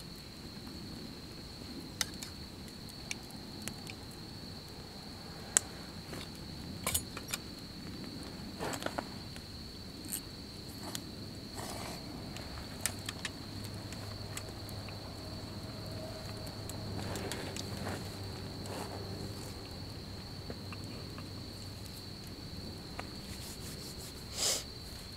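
Insects trilling steadily on one high note, with scattered light clicks and clinks of cookware as a steaming pot on a camp stove is tended.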